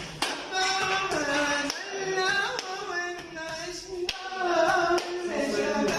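A man singing an Arabic song, his voice sliding and ornamenting the melody, with a few sharp taps in between.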